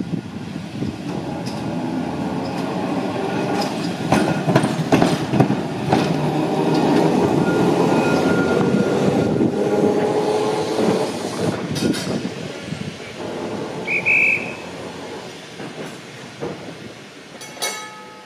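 A double-deck electric tram running past on street track, getting louder and then fading away. A whining note falls slowly in pitch as it goes by, with sharp clicks from the wheels on the rails.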